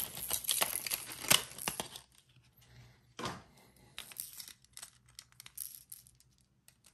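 Lure packaging crinkling and rustling as a Yo-Zuri lure is pulled free of it, for about two seconds, then a sharp click and a few faint taps as the lure is handled.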